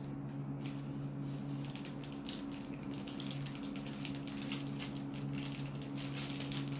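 Plastic sauce sachet crinkling and crackling as it is squeezed and worked between the fingers, a rapid irregular run of small crackles, over a steady low hum.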